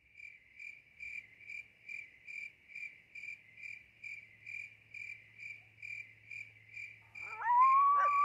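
A cricket chirping steadily, about two short high-pitched chirps a second. Near the end a loud steady tone slides up and holds over it.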